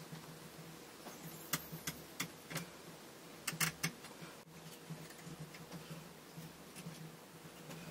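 Scattered light clicks and taps of small wooden pieces and tools being handled against a model ship's wooden hull frames, with a cluster of sharper clicks about three and a half seconds in. A faint steady low hum runs underneath.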